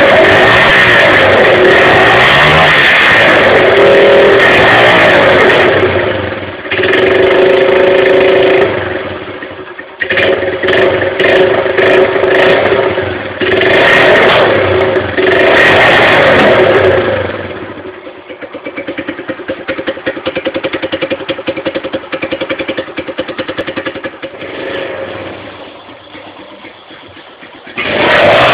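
Honda Fan 125 single-cylinder four-stroke engine breathing through an aftermarket Roncar aluminium exhaust with a figure-8 outlet. It is revved hard, then blipped repeatedly, and about eighteen seconds in it settles to an even, pulsing idle.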